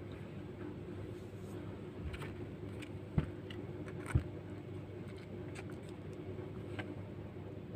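Plastic spoon clicking and scraping against food and its paper wrapper, with two sharp clicks about three and four seconds in, over a steady low hum.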